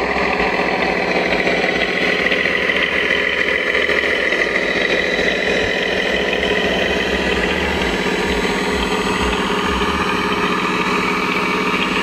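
Steady engine idling sound, running evenly without revving.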